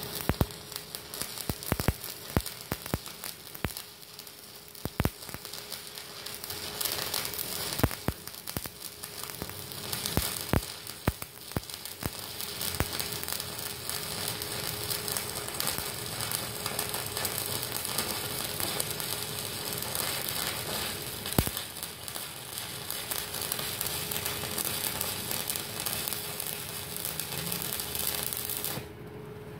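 Stick (SMAW) welding arc from an ES1200 120-amp inverter welder burning a 4 mm electrode. It crackles with many sharp pops for the first dozen seconds, settles into a steadier sizzle, and cuts off suddenly near the end when the arc stops.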